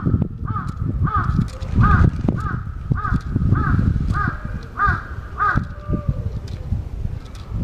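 A crow calling a rapid series of about ten short, identical caws, roughly two a second, stopping a little past halfway, over a low rumble. It is an unusual-toned call that the uploader takes for an earthquake-warning call.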